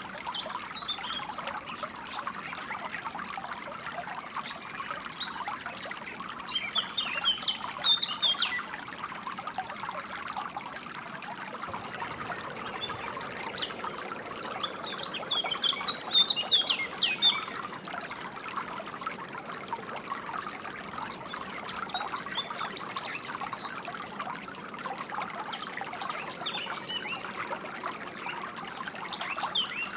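Water trickling steadily, with small birds chirping over it. The chirping thickens into busier, louder bursts twice: about a quarter of the way in and again just past halfway.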